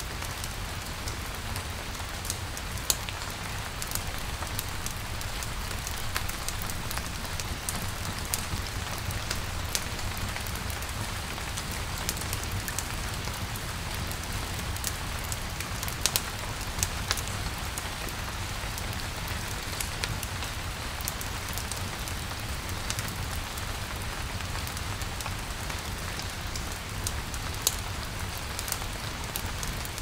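Steady rain falling and pattering on surfaces, with scattered sharp ticks and pops throughout and a low steady rumble underneath.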